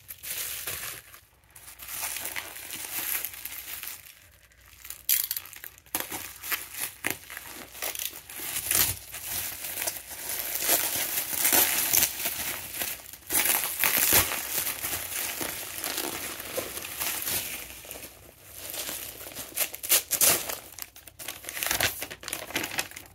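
Plastic bubble wrap crinkling and rustling as it is pulled open and handled, in irregular bursts with short pauses.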